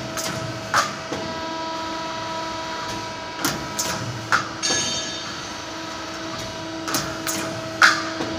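CNC hydraulic tube-punching machine at work: a steady hydraulic-pump hum under sharp metallic clunks of the punch stroking through a rectangular steel tube, in groups about every three and a half seconds, the loudest near the end. A short high hiss follows the middle group of clunks.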